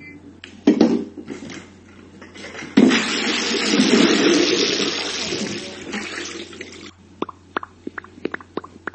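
A short knock, then water rushing for about four seconds, followed by a quick run of small drips or ticks.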